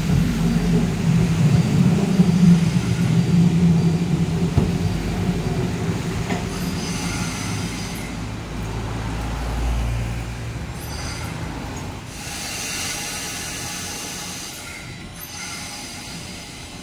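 Two-car Randen tram arriving at a platform and slowing to a stop. A low motor hum and rail rumble are loudest early on and fade after about ten seconds, with short high squeals as it slows.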